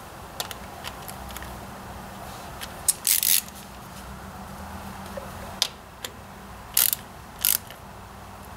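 A small socket ratchet clicking in several short spells as a nut on the ignition coil is worked, with lighter clicks of tools and wiring being handled in between.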